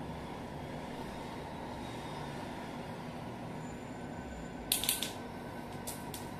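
Steady low room hum. About five seconds in, a quick cluster of sharp clicks and rustles from handling a treat pouch at the waist, then two more single clicks.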